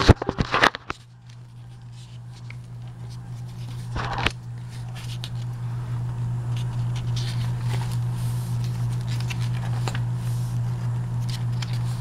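Glossy catalog pages being turned by hand, with a cluster of paper rustles and flaps in the first second and another about four seconds in, over a steady low hum.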